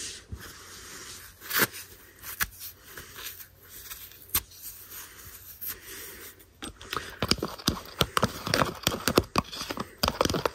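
Toilet paper being torn into small bits, with soft rustling and a few clicks, then from about seven seconds in a metal spoon stirring hand soap in a plastic tub, giving fast, irregular clicks and scrapes.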